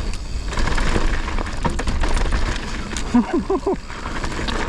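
Mountain bike descending fast over braking bumps: wind rush and heavy rumble with steady clatter and knocking from the bike and trail. A brief vocal grunt about three seconds in.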